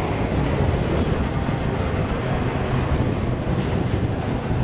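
Double-stack container train's well cars rolling past at close range: a steady rumble of steel wheels on the rails, with a few faint clicks.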